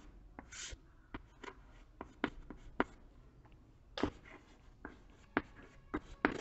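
Chalk writing on a chalkboard: irregular sharp taps and short scratches as letters are written.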